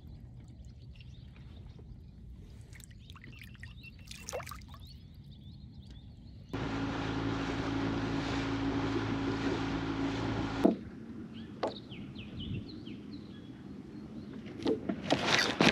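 A small electric motor on a fishing boat hums steadily for about four seconds, starting and stopping abruptly. Around it the boat is quiet, with faint water sounds and a couple of light knocks just after the motor stops.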